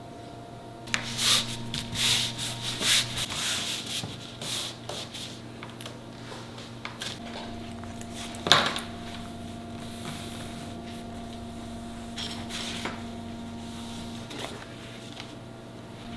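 Quick, irregular rubbing strokes on leather for about three seconds, a single sharp click about eight and a half seconds in, and a few scattered strokes after it.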